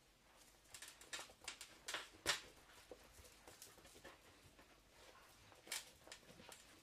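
Faint, irregular taps and soft slaps of hands pressing and folding a soft, buttered yeast dough on a countertop, working the butter into it. The loudest tap comes a little over two seconds in, another near the end.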